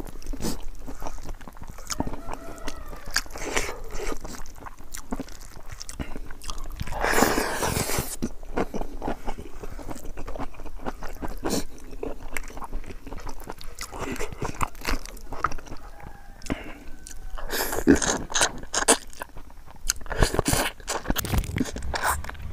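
Close-miked chewing of pig trotters with rice: a steady run of short crunches, smacks and mouth clicks, with a few longer noisy bursts near the middle and towards the end.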